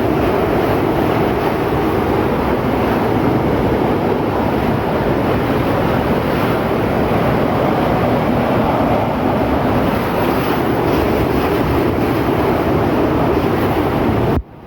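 Hurricane-force wind blowing hard and buffeting the microphone, a steady loud rush of noise that cuts off suddenly near the end.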